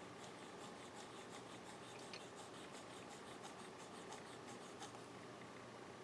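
Faint scratching of a Studio Auto-matic mechanical pencil's lead on lined paper, writing a row of cursive loops as a quick, even run of short strokes.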